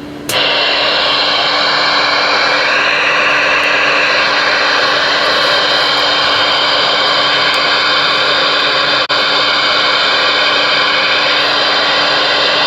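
Loud, steady static hiss from a ten-meter/CB radio receiver's speaker with the squelch open. It comes on suddenly at the start and cuts out for an instant about 9 seconds in.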